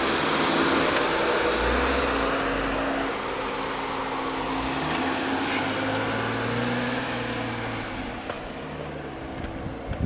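Jeep Rubicon's engine running at low revs while off-roading on rock, its pitch shifting up and down, under a steady rushing noise. The sound eases off somewhat toward the end.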